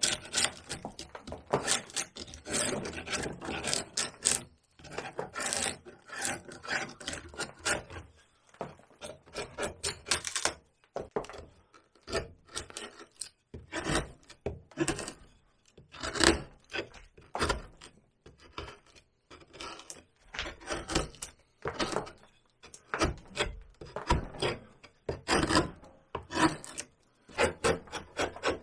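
Hand carving gouge and chisel cutting into cottonwood bark in quick, irregular strokes, grouped in short runs with brief pauses between.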